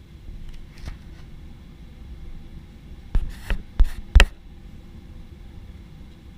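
Steady low hum of a Boeing 737-800 passenger cabin, broken a little past three seconds in by four sharp knocks within about a second.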